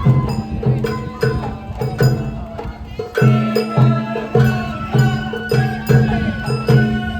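Sawara bayashi festival music: a bamboo flute melody over a steady beat of taiko drums, about two strokes a second, the drumming coming in stronger about three seconds in.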